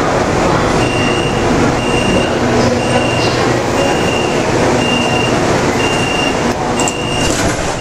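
Metro car's door-closing warning: a short high beep repeating about once a second while the sliding doors close, over the steady running noise of the subway car.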